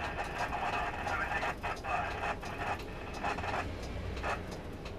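Inside a highway bus crawling in traffic: the engine's low rumble throughout, with muffled voices coming and going in the cabin.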